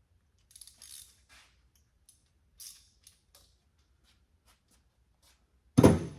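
Small metal parts and hand tools clinking and rattling: a run of light, ringing clinks, then one loud clunk near the end.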